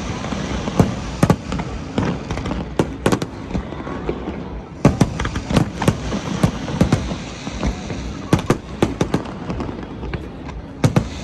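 Fireworks exploding in irregular volleys of sharp bangs and cracks, many in quick succession, over a steady background noise. The bursts come densest about five seconds in and again near the end.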